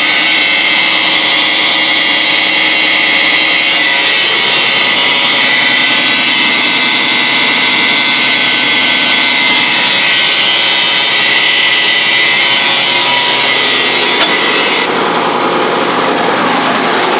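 M35A2 army truck's turbocharged multifuel inline-six diesel running steadily, with a strong high hiss over the engine note that eases about fifteen seconds in. The hole in the exhaust extension tube between the turbocharger and the exhaust pipe has been repaired, so the engine is running with a sound exhaust.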